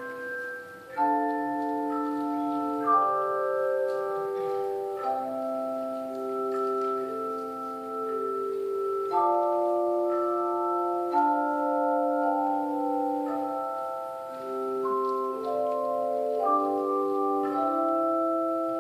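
Handbell choir ringing a piece in full chords: several bells struck together, each chord ringing on while the next is struck every second or two.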